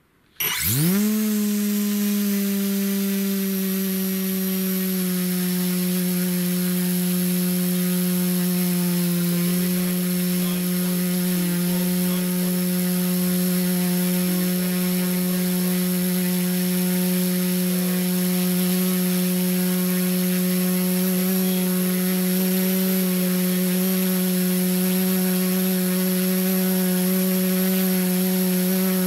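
Leopard LC250-30 4420kv brushless outrunner turning a 14x8 carbon propeller through a Reisenauer Micro 5:1 gearbox at full power on a thrust stand. It spins up with a quick rising whine in the first second, then holds a steady, loud, high-pitched drone of motor and gear whine.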